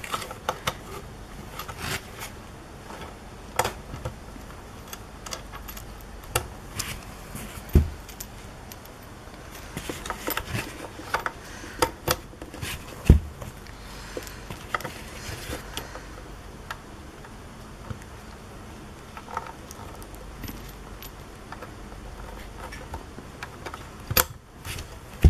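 Threaded metal 4-pin aviation connectors on camera cables being plugged into the sockets of a metal-cased vehicle DVR and screwed on by hand: scattered clicks, light metallic rattles and cable rustling, with two louder knocks about eight and thirteen seconds in.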